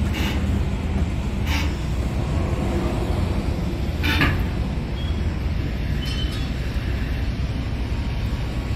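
Steady low rumble of vehicle engine noise, with a few brief hissing bursts over it.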